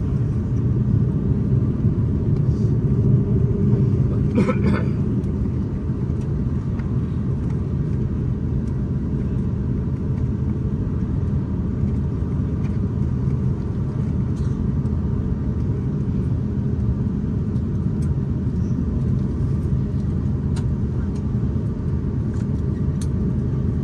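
Steady low rumble of cabin noise aboard an Airbus A350-941 airliner, with a short faint tone about four and a half seconds in.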